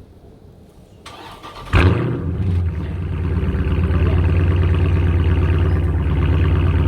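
Car engine starting: about a second of starter cranking, then it catches with a brief rev flare and settles into a steady idle.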